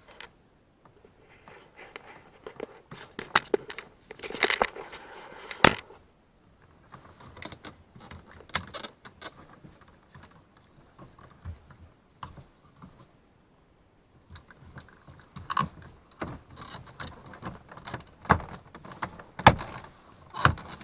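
Hands refitting the plastic trim around a car's power mirror switch: rattling, scraping and handling noises, with several sharp clicks as pieces snap back into place.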